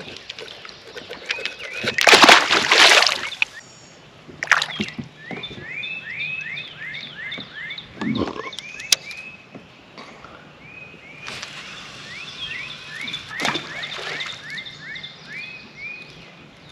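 A splash of water about two seconds in as a released catfish goes back into the river, with a couple of sharp knocks later. Underneath, an animal keeps calling in a steady run of short, quickly rising chirps.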